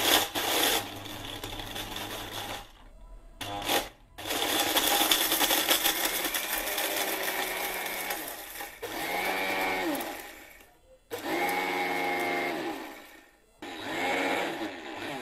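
Orpat 1200-watt mixer grinder running in about five bursts of a few seconds each, with short pauses between, grinding whole brick pieces in its small stainless steel jar.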